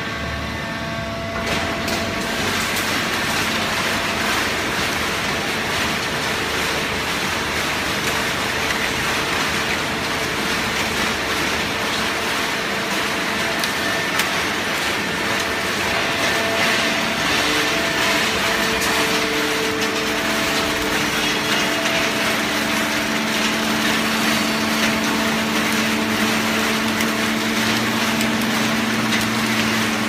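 Fully automatic horizontal hydraulic baler running: a steady, dense mechanical noise with a hydraulic pump hum, the hum growing stronger about two-thirds of the way through.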